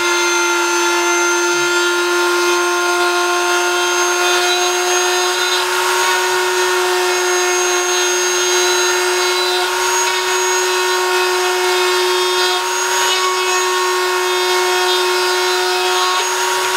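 Handheld rotary tool spinning a thin burr bit at a steady speed, a constant whine at one pitch. The burr is being wiped against a wood block to clear melted 3D-printing plastic that has clogged it.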